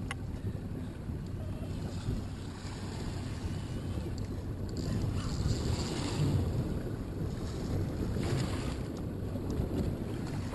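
Wind rumbling on the microphone over open water, with waves lapping against a boat; brief louder washes of sound about halfway through and near the end.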